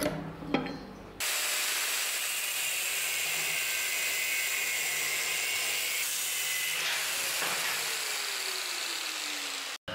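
Angle grinder with a thin cut-off disc cutting through a square steel bar: a loud, steady grinding hiss that starts abruptly about a second in and cuts off just before the end, with a faint falling tone near the end.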